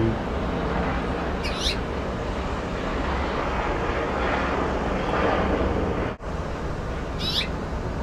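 Small bird chirping twice, two short high calls about six seconds apart, over a steady rushing background noise.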